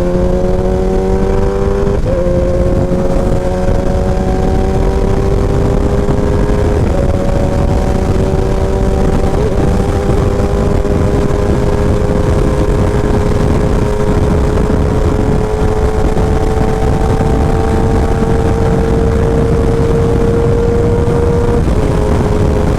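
2017 Kawasaki Ninja ZX-10R inline-four engine through a short SC Project exhaust, pulling while the bike is ridden. Its note climbs slowly in pitch, with a few brief breaks in the first ten seconds and a drop near the end, over heavy wind and road rumble.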